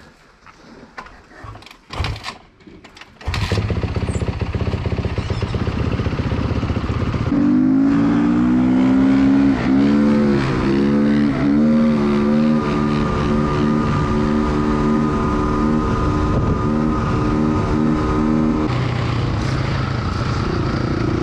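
Dirt bike engines under way, heard from the rider's seat. After a few quiet clicks, engine noise comes in suddenly about three seconds in; a few seconds later the pitch climbs and drops several times as the bikes accelerate through the gears, then holds steady.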